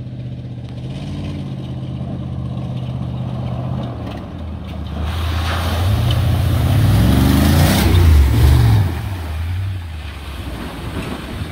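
1996 GMC Sierra K1500 pickup driving through a mud puddle. Its engine runs steadily at first, then revs up about halfway through as the tyres throw muddy water, loudest a little past the middle, and fades as the truck passes.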